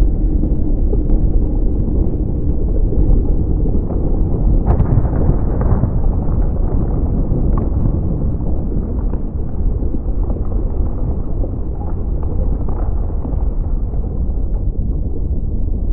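A volcanic-eruption soundscape: a steady, deep rumble with scattered crackles and pops and a sharper crack about five seconds in.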